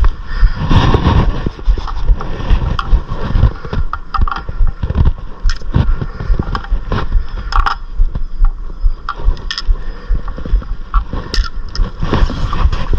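Irregular clicks, knocks and scrapes of tools and brake parts being handled during a brake job, over a steady low rumble.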